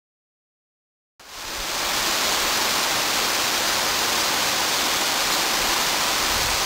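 Silence for about a second, then the steady rush of flowing creek water fades in and holds.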